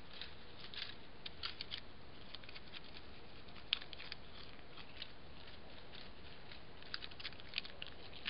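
Dry leaf litter crackling and rustling in short, irregular ticks, the sound of a barking deer (muntjac) shifting its feet on the forest floor, over a steady faint hiss.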